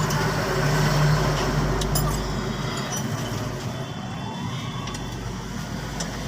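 Motor vehicle engine running with traffic noise. It is loudest about a second in, then eases off to a steady hum.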